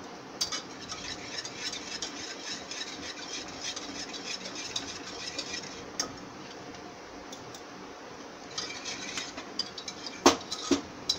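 A wire whisk twirled and stirred through thick boiled dal in a metal pressure cooker, its wires ticking and scraping against the pot in quick, irregular clicks. There is a pause in the middle, then more clicks and one loud knock near the end.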